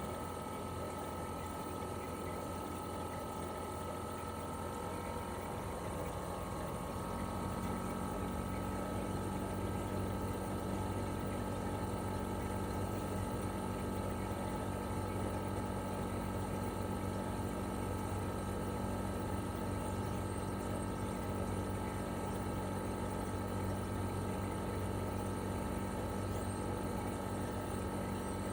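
Toshiba RAS-285BAD air-conditioner outdoor unit running in cooling, its twin-rotary inverter compressor and propeller fan making a steady hum. About six to eight seconds in the pitch of the running sound shifts and it grows slightly louder, then it holds steady again.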